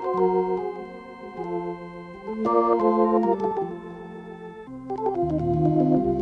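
Hammond organ playing held chords that change every second or so, with lower bass notes coming in about five seconds in.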